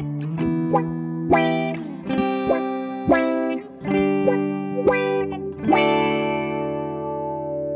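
Two electric guitars, one a PRS SE Silver Sky, played together through an EarthQuaker Devices Spatial Delivery envelope filter: a run of picked notes and chords, ending on a chord that rings out and slowly fades.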